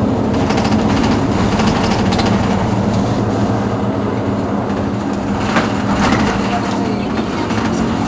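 Mercedes-Benz Citaro G C2 articulated bus idling at a standstill, a steady engine hum that does not rise or fall.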